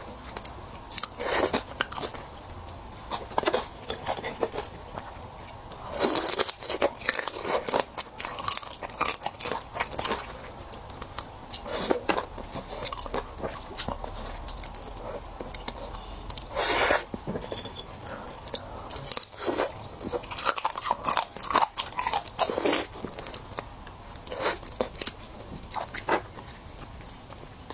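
A person eating raw marinated seafood: wet sucking and smacking with crunchy bites and chewing, in irregular bursts with short pauses between them.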